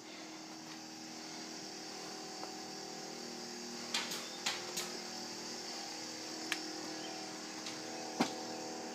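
A steady mechanical hum, with a few light clicks and ticks about halfway through and near the end.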